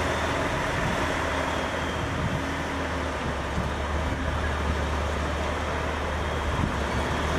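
A large truck's engine running steadily: a deep, even hum under a constant rushing noise, with no change in speed.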